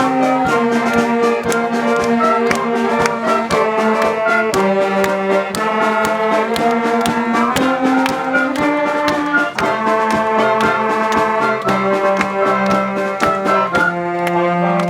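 Brass-led music: held chords from trombones and trumpets, changing about every second, over a steady percussion beat.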